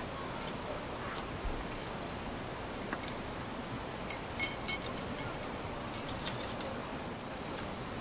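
Small metal and glass parts of a Kovea Observer Mini gas lantern clicking and clinking as the cap and glass globe are handled, a few light ticks mostly in the middle, over a steady background hiss.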